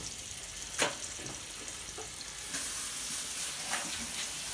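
Steaks sizzling in a frying pan, with a sharp click about a second in. About halfway through, a steadier rush of water from the sink tap joins in.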